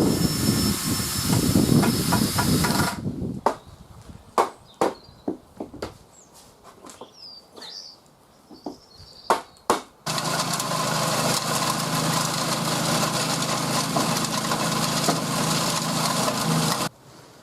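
A motor running steadily in two stretches that start and stop abruptly. Between them, a few seconds of scattered knocks and faint bird chirps.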